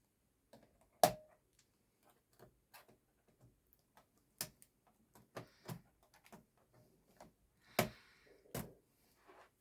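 Plastic clicks and snaps from a Dell Inspiron N5010 laptop keyboard being pried up out of its retaining clips. A sharp snap comes about a second in, then scattered smaller clicks, and two more loud snaps near the end.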